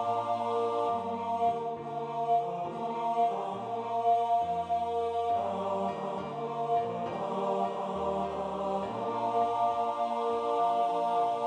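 Choral harmony in several parts, with the bass part prominent, moving through a closing phrase in steady sustained notes and settling on a long held final chord for the last few seconds.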